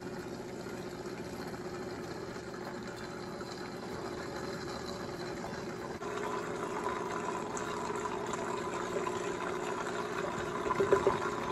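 Vitamix blender running on low, churning basil, pine nuts, garlic and olive oil into pesto: a steady motor hum that gets a little louder about six seconds in. A few sharp knocks near the end as a spatula is worked in the jar.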